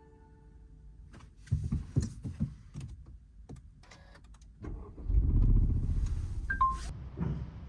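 A few clicks and knocks, then the Honda Civic Type R FL5's 2.0-litre turbocharged four-cylinder engine starts about five seconds in, runs loudly and then eases back toward idle. A short two-note beep sounds as the engine catches.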